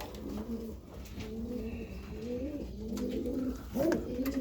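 Several domestic pigeons cooing, their low, wavering coos overlapping one another, with a few soft clicks or knocks in the second half.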